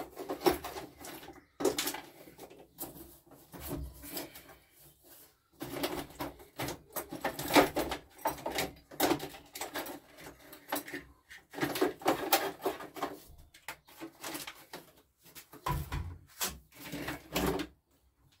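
Rummaging through a box of parts: irregular clattering and knocking of objects being moved and set down, in quick clusters with short pauses.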